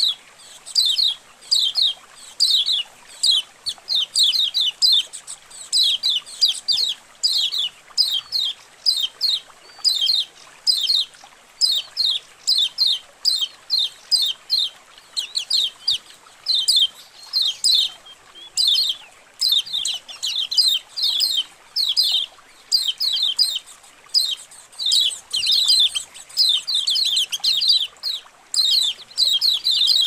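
A colony of kecial kuning (yellow white-eyes) chirping together in fast, busy runs of short, high chirps, with brief lulls now and then. This is a colony-call recording used as a masteran, played to coax caged white-eyes into calling and opening their beaks.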